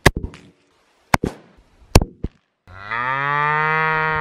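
Several sharp rifle shots in the first two seconds, the loudest sounds here, then a cow moos once: a long call of about a second and a half that drops away at the end.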